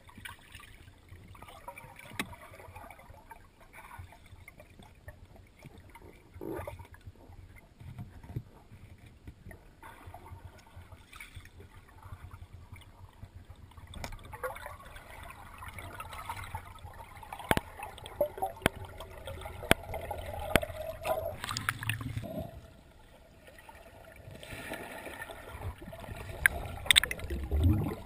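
Underwater sound heard through a camera housing: muffled water noise with scattered clicks and knocks and irregular gurgling of air bubbles from divers' breathing, getting louder near the end.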